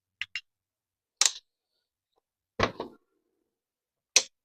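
A few sharp isolated clicks, a quick pair early on and single ones about a second in and near the end, with a heavier knock about two and a half seconds in: a new spark plug and a gap gauge being handled while the plug's gap is checked.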